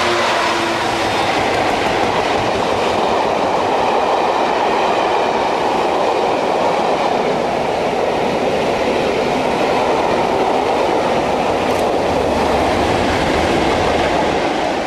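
Diesel-hauled charter train of maroon coaches passing at speed close by: a steady loud rumble of the coaches' wheels on the rails. The engine sound of the leading locomotives trails off in the first second, and the tail-end locomotive goes by near the end.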